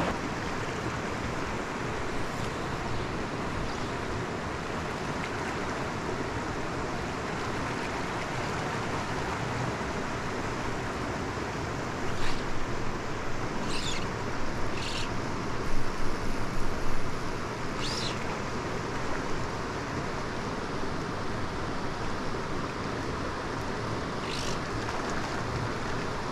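Mountain stream rushing steadily over rocks. A few short, sharp sounds stand out above the water about halfway through, with one more near the end.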